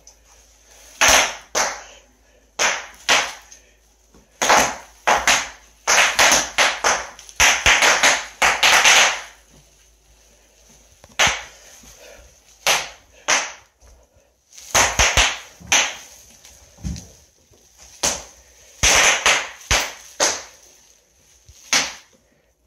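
Bubble wrap popping under the wheels of a knee scooter rolling across it: sharp pops, some single and some in quick runs, with short quiet gaps between.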